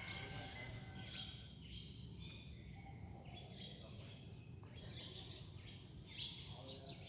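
Faint background birds chirping, a string of short high calls and trills, over a steady low rumble of ambient noise.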